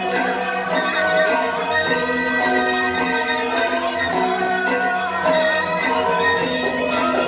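Traditional Indonesian dance music: tuned metal mallet percussion, gamelan-style, plays a melody of ringing notes over a fast, steady beat of jingling percussion.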